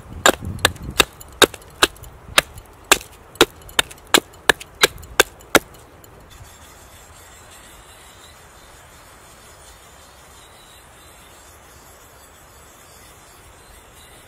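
A small hatchet chopping an oak spoon blank on a wooden stump: about fourteen sharp knocks, two or three a second, that stop about five and a half seconds in. After that there is only a faint, even rubbing as a sharpening stone is worked on the hatchet blade.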